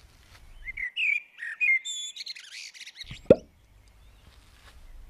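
Cartoon sound effects: quick, high twittering chirps and whistles starting about a second in, then a single bubble-like plop, a short falling blip, a little after three seconds.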